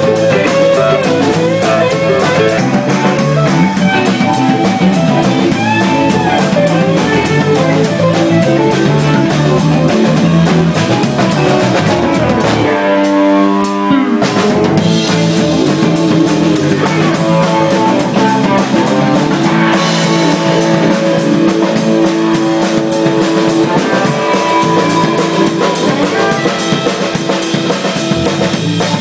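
A live band playing loud rock with electric bass, electric guitar and drum kit. About 13 seconds in, the drums drop out briefly under a single held note, then the full band comes back in.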